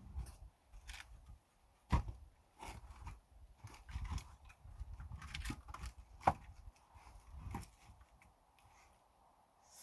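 Irregular knocks and thuds of objects being handled and set down, two sharper ones about two and six seconds in, with light rustling between.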